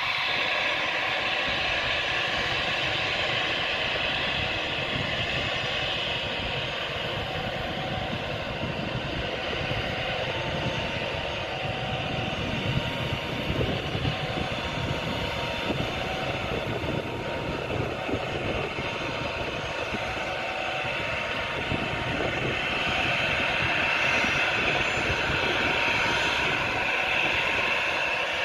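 Jet airliner engines running steadily, with a high whine that grows louder in the last few seconds. Strong wind buffets the microphone with a low rumble.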